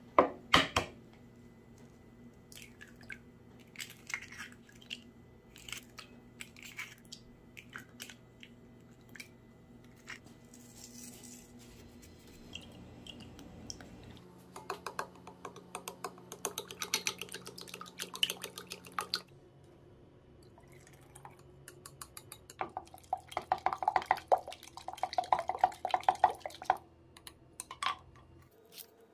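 Eggs cracked one at a time on the rim of a glass bowl and dropped in, a sharp tap every second or so. Later come two spells of fast, dense clicking in the bowl.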